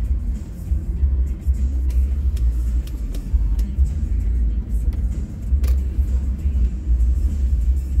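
Ford Excursion's 6.8-litre V10 driving, a deep, uneven rumble of engine and road noise, with a single sharp click a little past halfway.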